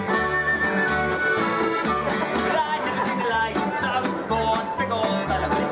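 Instrumental music with sustained melody notes over a steady, repeating bass beat.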